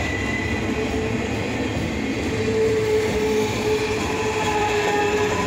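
Freight train flatcars rolling past at speed: a steady rumble of steel wheels on rail, with a thin steady ringing tone that grows stronger from about halfway through.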